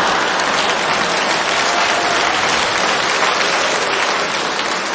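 Audience applauding after a joke: dense, steady clapping that thins slightly near the end.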